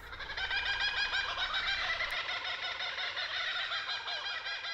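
A flock of birds calling together, many short calls overlapping in a dense chorus that swells in over the first second.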